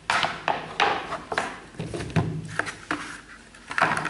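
Sneakers and their cardboard shoe box being handled and moved about: a series of irregular knocks, scrapes and rustles, with the loudest just at the start and near the end.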